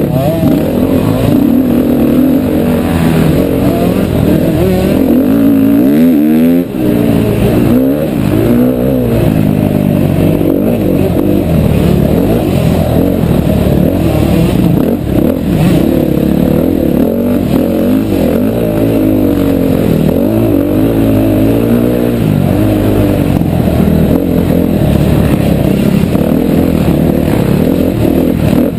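2011 KTM 350 XC-F's single-cylinder four-stroke engine, heard from a helmet-mounted camera, revving up and falling off over and over under hard throttle. The engine note drops briefly about six seconds in.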